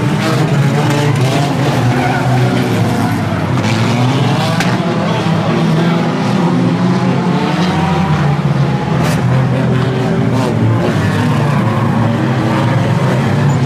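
A pack of banger racing cars running round the track together, several engines revving at once with tyres skidding. A few sharp knocks cut through the engine noise, a couple around four seconds in and two more around nine to ten seconds.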